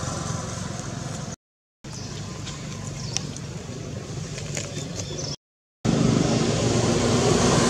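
Steady low mechanical hum with background noise. It cuts out completely twice for about half a second and comes back louder after the second break, with a few faint clicks in the quieter middle part.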